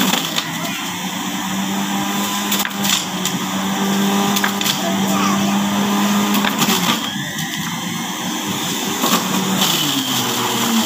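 Electric juicer's motor running while beetroot, carrot and orange pieces are pushed down the feed chute, with sharp clicks and crunches as the pieces are shredded. The motor's hum holds steady, then wavers and dips in pitch under load from about seven seconds in.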